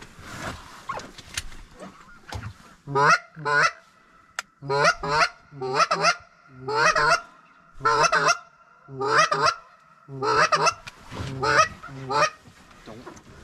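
A flock of large birds honking: loud, short calls, mostly in pairs about once a second, starting about three seconds in.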